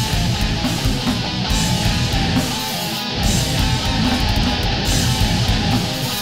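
Death metal music: distorted electric guitars riffing with bass, with a short break in the low end about three seconds in.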